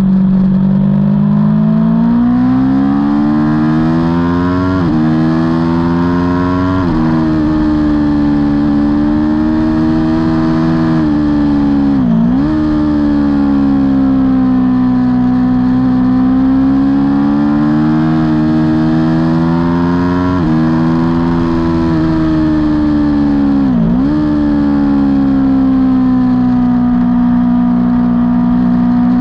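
Aprilia Tuono V4 engine heard on board at race pace, its pitch climbing with quick upshifts about five and seven seconds in. It then rises and falls through the corners, with two sharp dips, around twelve and twenty-four seconds in.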